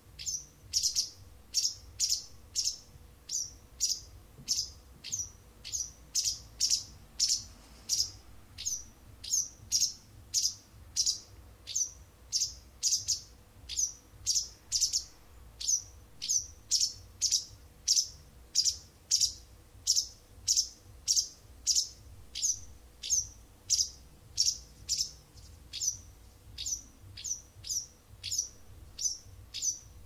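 White wagtail calling: a steady, unbroken series of short, high chirps, about two a second.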